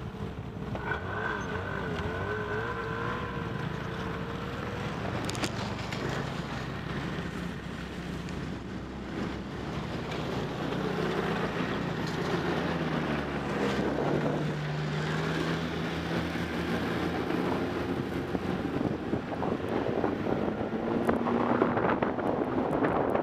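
Snowmobile engines running as the sleds set off along a snow trail, the engine pitch rising and falling with the throttle and the sound growing louder toward the end.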